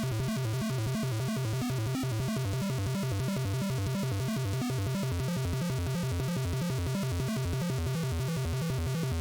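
Background music with a fast, steady beat and a repeating bass line.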